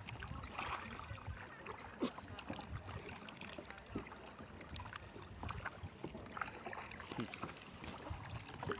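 A kayak being paddled: paddle blades dip and splash irregularly in the water, over a low rush of water and wind on the microphone.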